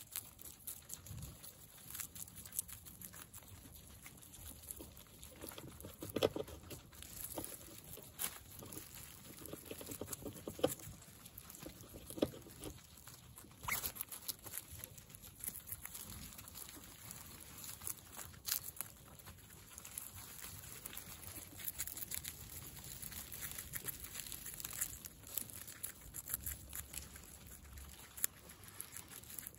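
Guinea pigs chewing raw vegetables, carrot slices and a hand-held green piece, making many quick, irregular little crunches.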